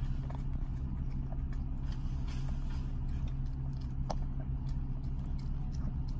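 Steady low hum of a car idling, heard inside the cabin, with faint wet licking clicks from a Yorkshire terrier lapping whipped cream out of a small cup.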